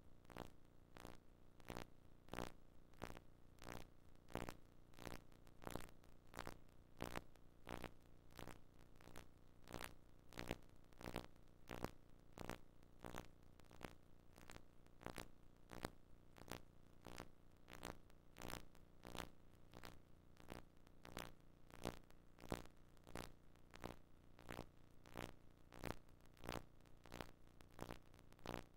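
Faint, evenly repeated thuds of a volleyball struck down by hand and bouncing off a wooden gym floor, about two knocks a second, over a low steady hum.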